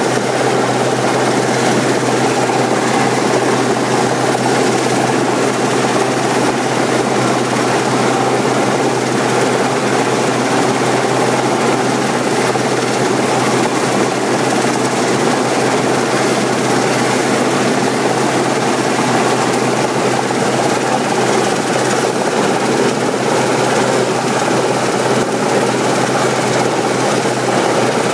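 RAF Westland Sea King search-and-rescue helicopter hovering low overhead: loud, steady rotor and twin turbine engine noise that does not change.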